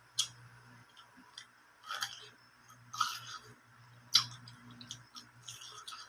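Crunchy bites and chewing of raw produce, heard up close: sharp crunches about once a second, with softer clicks between, over a faint low hum.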